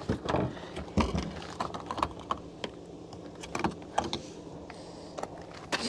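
Irregular clunks, knocks and rattles of a car body being rocked by hand, meant to jar loose a suspected dead fuel pump in a car that won't start.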